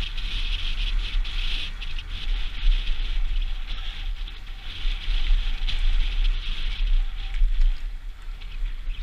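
Mountain bike descending a dirt forest trail at speed: tyres hissing and crunching over loose dirt and grit, with scattered clicks and rattles from the bike. Wind buffets the helmet-mounted camera's microphone as a heavy low rumble.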